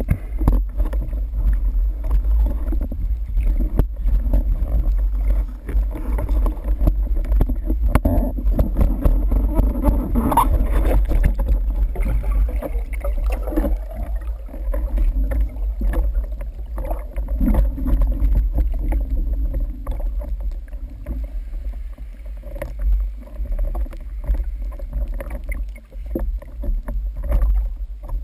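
Muffled underwater water noise as a speargun with a mounted camera is carried up toward the surface: a steady low rumble with frequent light knocks and clicks.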